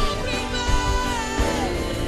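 Gospel music: a voice held on long notes that slide down near the end, over instrumental backing with a beat.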